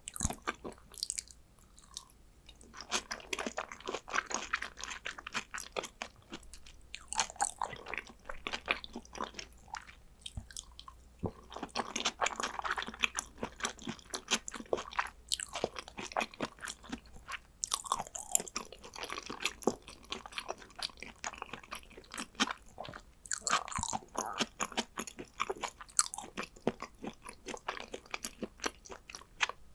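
Close-miked chewing and wet mouth sounds of a person eating soy-sauce-marinated raw salmon: clusters of smacks and clicks with short pauses between mouthfuls.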